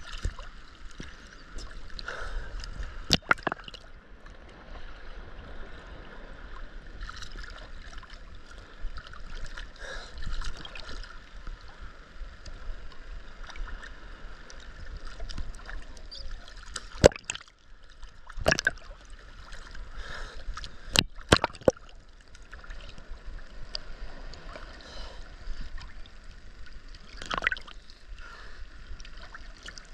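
Choppy ocean water sloshing and gurgling around a camera at the waterline, with sharp slaps of water about 3 seconds in, several between about 17 and 22 seconds, and one near the end.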